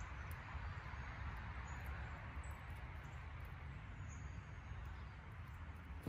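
Woodland ambience: a steady low wind rumble on the microphone, with a few faint, short, high bird chirps.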